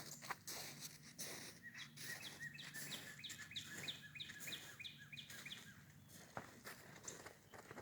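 A bird calling a run of faint, short chirps, about three a second, for a few seconds, over scattered crunching footsteps in snow.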